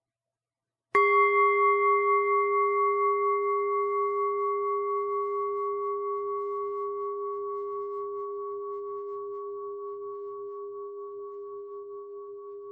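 A meditation bell struck once about a second in, then ringing on with a low steady hum and higher overtones that pulse gently and slowly fade, sounding the start of the meditation.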